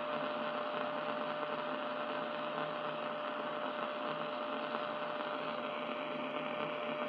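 Grundig 2147 valve radio's loudspeaker giving a steady hiss with a single held tone and a low hum, as the IF trap coil is being tuned to attenuate the injected IF signal. The noise is the sign that the trap is strongly attenuating the signal.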